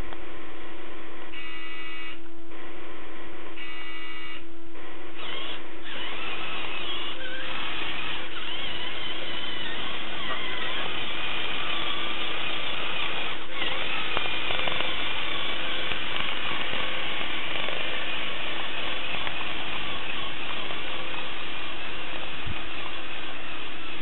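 Small electric drive motors and plastic gearing of a radio-controlled toy bulldozer whining steadily as it drives, the whine growing fuller from about seven seconds in, with a few short stuttering tones near the start.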